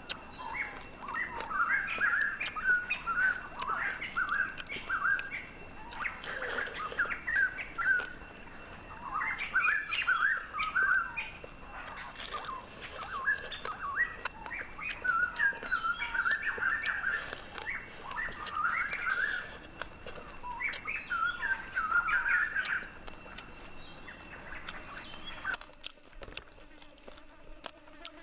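Birds chirping busily in short, rapid calls, with scattered small clicks from the fish being picked apart by hand. The chirping stops about two seconds before the end.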